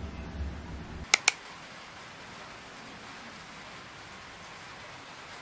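Two sharp clicks in quick succession about a second in, then a steady faint hiss of room tone.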